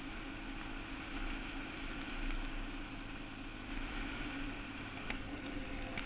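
Quad Runner 160 ATV's single-cylinder engine running steadily, with a couple of brief ticks near the end.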